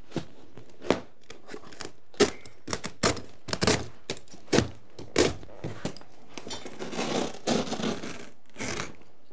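Old carpet being cut with a knife and pulled up off the floor: scattered sharp knocks and scrapes, then a longer rasping tear about seven seconds in.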